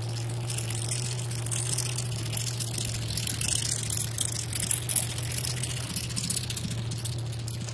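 Engine of a lifted GMC mud truck with hood stacks running with a steady low drone as the truck creeps along, under a rushing hiss.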